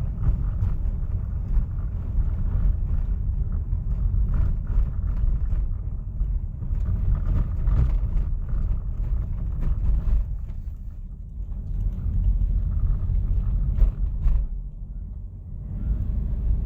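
Steady low rumble of a vehicle on the move, with occasional light knocks and rattles.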